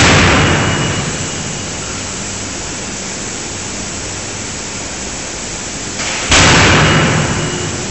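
Fully hydraulic 450 kJ die forging hammer striking hot steel: a heavy blow right at the start, another about six seconds in and a third at the very end. Each is a sudden loud crash that dies away over a second or so, with a steady loud machinery noise between the blows.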